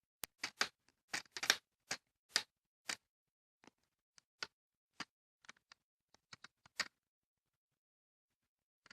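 Plastic screen bezel of an Acer Aspire 7551 laptop being pressed back on, its clips snapping into place in a run of sharp, irregular clicks that stop about seven seconds in.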